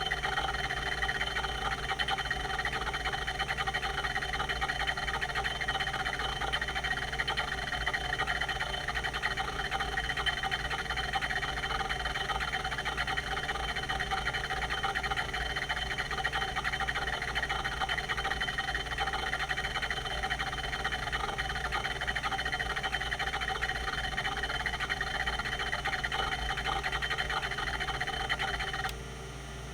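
Quantum Q540 hard drive with a rotary voice-coil actuator, seeking rapidly and continuously over its spinning platters: a dense, fast chatter with a squeaky tone. Near the end the seeking stops abruptly, leaving only the steady hum of the spindle.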